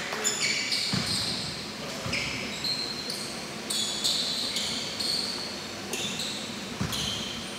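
A basketball being dribbled on a gym court, a few dull thumps, with sneakers squeaking on the floor.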